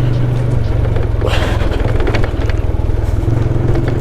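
Motorcycle engine running steadily under load while climbing a steep dirt trail. A brief rush of noise comes about a second and a half in.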